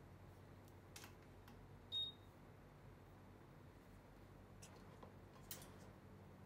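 Near silence: quiet workbench room tone with a faint low hum and a few faint clicks, broken by one short high-pitched electronic beep about two seconds in.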